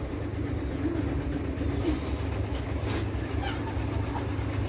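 A steady low motor hum, with a sharp click about three seconds in and a few faint short calls over it.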